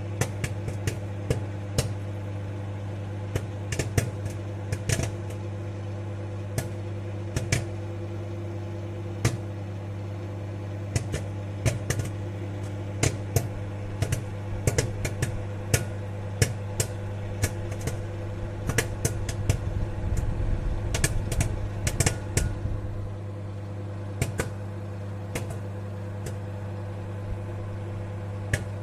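Popcorn kernels popping inside a running microwave oven: irregular sharp pops over the oven's steady hum. The pops come in a quick flurry about two-thirds of the way in, then thin out to scattered single pops as the batch nears the end of popping.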